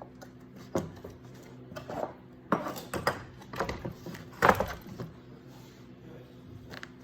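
Small metal parts and tools clinking and knocking as they are handled on a workbench, several sharp knocks in the middle, over a steady low hum.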